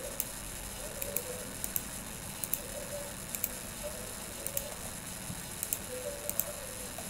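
Computer mouse button clicks, mostly in quick pairs, about once a second, over a steady background hiss.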